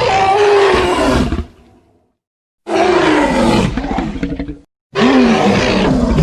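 Tyrannosaurus rex roar sound effects from the Jurassic Park/World films: three loud roars in a row, each about two seconds long with a falling pitch, with short silent gaps between them.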